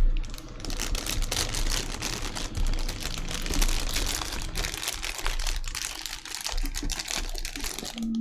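Plastic packaging crinkling and rustling continuously as a collectible figure is unwrapped, with many small crackles.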